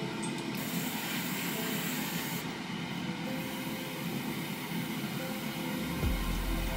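Gravity-feed airbrush hissing as it sprays paint onto a 3D-printed toy part, over a steady background of noise. A low hum comes in near the end.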